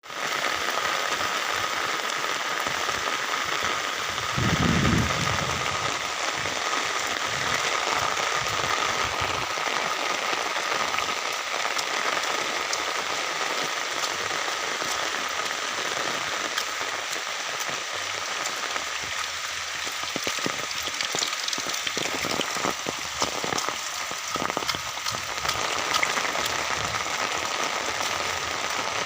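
Heavy rain falling steadily, a dense patter of drops hitting surfaces. A brief low rumble about five seconds in.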